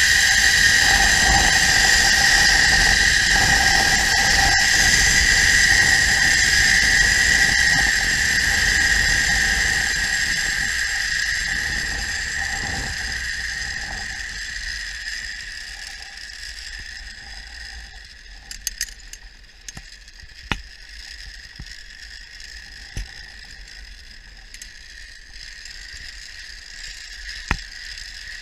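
Zipline trolley's pulley wheels running along the steel cable: a loud, steady, high whine with a rushing noise under it. It fades down over several seconds about midway, and a few sharp clicks follow.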